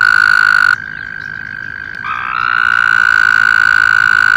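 American toads trilling. One long, steady, high-pitched trill breaks off about a second in while a fainter trill carries on beneath it. A second loud trill then starts about two seconds in, rising slightly in pitch at its start.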